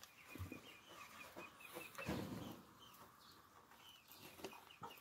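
Faint background poultry: chickens clucking, with a quick run of high chirps in the first two seconds. A soft rustle comes about two seconds in.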